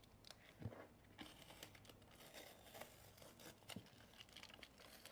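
Faint crinkling and rustling of packaging being unwrapped by hand, with a few scattered soft clicks.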